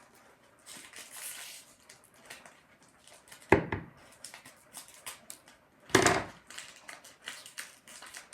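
Small scissors snipping and plastic toy wrapping crinkling as the packaging is cut open, with scattered small clicks and two loud thumps, about three and a half and six seconds in.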